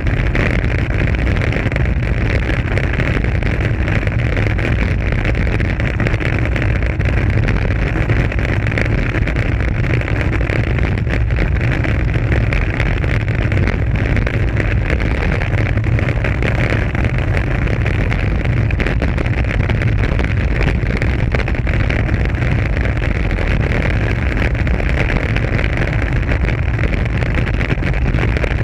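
Steady, loud wind rush buffeting a GoPro Hero 3+ action camera on a road bike descending at speed, mixed with the rumble of tyres rolling over rough, patched asphalt.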